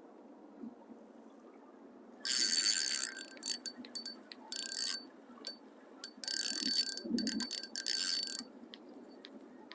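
Fishing reel being cranked in short irregular spurts, its gears giving a high whirr with a steady whine through it, starting about two seconds in.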